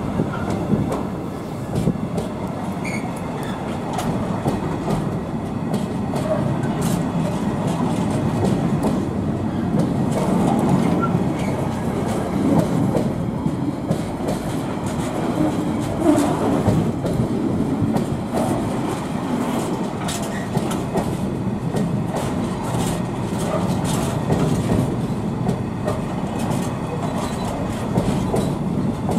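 Container freight train's loaded flat wagons rolling steadily past, a continuous rumble with frequent short clicks and knocks from the wheels running over the rails.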